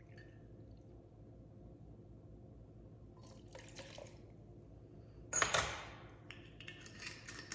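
Gin being poured into a metal jigger, then tipped from the jigger onto ice in a steel cocktail shaker, heard faintly about three to four seconds in. About five and a half seconds in comes a sudden, louder clatter that fades within a second, the loudest sound, with a few smaller knocks near the end.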